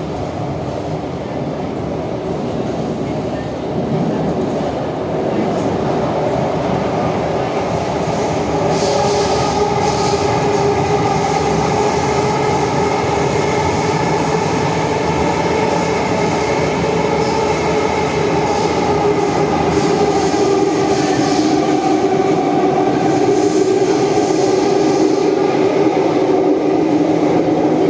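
Kawasaki–CRRC Sifang CT251 metro train running on the line, heard from inside the car: wheel and rail noise under a motor whine of several steady tones, getting louder about four seconds in as the train picks up speed out of the station.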